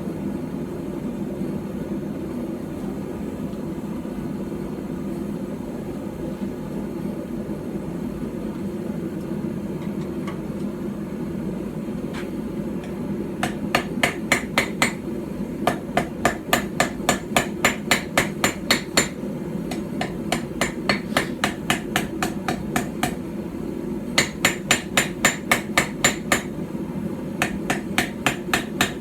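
Small hand-forged hammer striking hot steel on a small iron stump anvil while forging a knife. A steady low hum runs for about thirteen seconds before the hammering starts. Then come runs of quick, sharp blows, about three to four a second, broken by short pauses.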